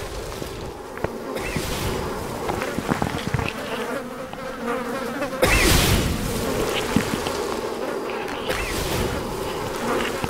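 A steady buzzing, broken by a sudden, louder burst of noise about five and a half seconds in, with scattered short knocks.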